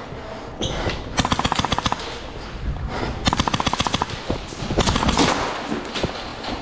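Airsoft guns firing in fully automatic bursts: three rapid strings of shots at about fifteen rounds a second, the first about a second in, the second near the middle and a short one about five seconds in.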